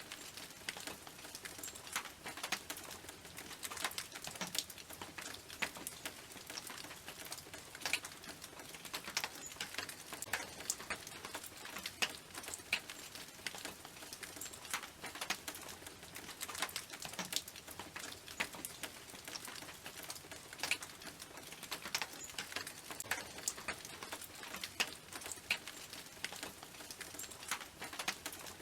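Rain dripping onto a tin roof: a steady patter of irregular, sharp ticks as single drops strike the metal.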